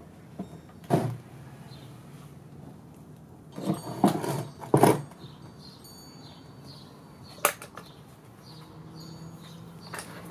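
Outdoor background with faint bird chirps, broken by a few short knocks and one sharp click.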